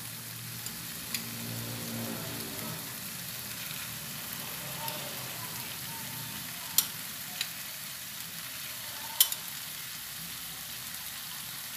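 Sautéed garlic, onion and tomato sizzling steadily in an oiled wok as pieces of fried milkfish are laid in, with a few sharp clicks of the metal spatula against the pan.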